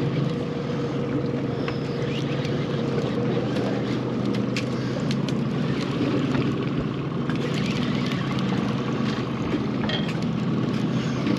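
Boat motor running at a steady pitch, with wind and water noise around it.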